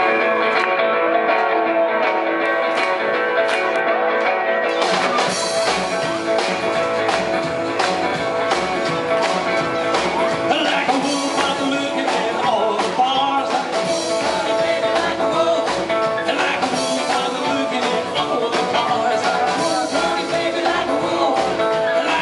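Live bluesabilly band playing: archtop guitar and upright double bass open the song, and the drum kit comes in about five seconds in, after which the full band plays on with a steady beat.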